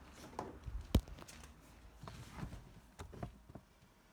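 Irregular short knocks and clicks, with one sharp click about a second in.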